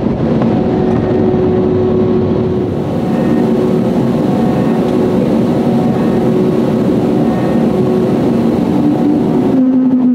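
Airliner cabin noise while taxiing: jet engines at low taxi thrust make a steady rumble and hiss with a faint hum. Near the end the hiss drops away, leaving a steady low hum.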